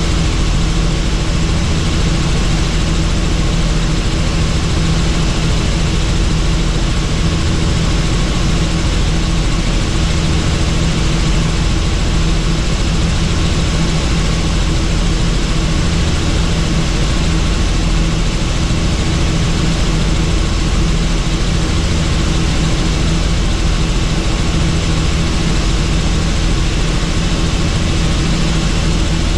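Helicopter engine and rotor running steadily: a loud, even drone with a low hum that holds the same pitch and level throughout.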